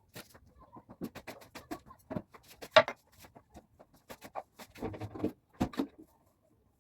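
Kitchen clatter: a quick, irregular run of clicks and knocks from utensils being handled while food is prepared, loudest just under three seconds in and stopping about a second before the end.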